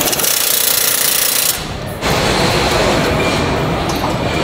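A handheld power tool runs on a truck chassis with a loud hissing whir for about a second and a half, then stops. Steady assembly-line noise with clatter follows.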